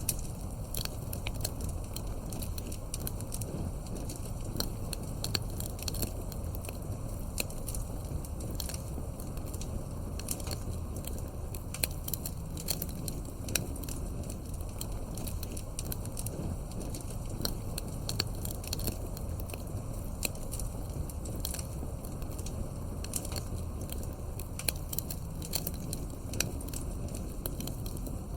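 Wood fire burning: logs crackling and popping in irregular sharp snaps over a steady low rumble of flame.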